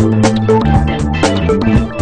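Instrumental music with a steady drum beat, about two hits a second, over a bass line.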